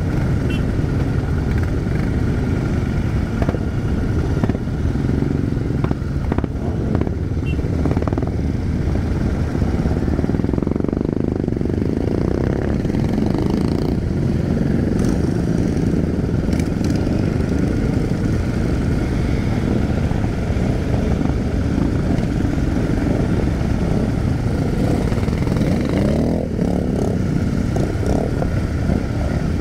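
Many Royal Enfield motorcycles running at low speed together in a packed group, a steady mix of engine sound with no single bike standing out.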